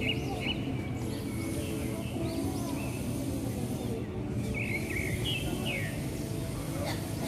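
Small birds chirping in short, repeated phrases several times, over a steady low hum of city traffic.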